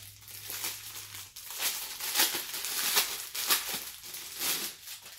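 Clear plastic packaging bag crinkling in irregular rustles as hands work it open.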